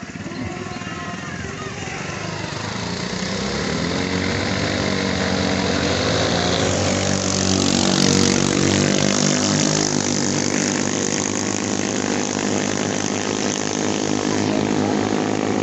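Small-engine longtail racing boats running flat out, a high engine whine over the hiss of spray. It grows louder as the boats approach and is loudest as one passes about eight seconds in.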